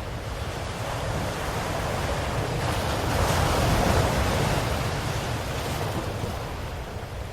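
Ocean waves washing ashore: one wave swells to a peak about halfway through and then recedes, over a steady low surf rumble.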